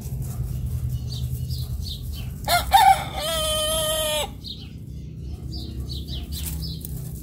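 A rooster crows once, about two and a half seconds in: a single loud, held call of nearly two seconds that cuts off sharply.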